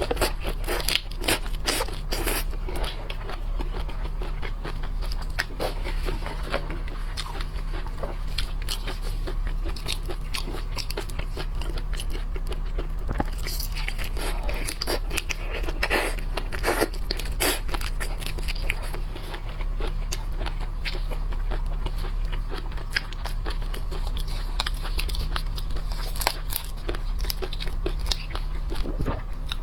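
A person eating seafood close to the microphone: irregular biting, crunching and chewing throughout, over a steady low hum.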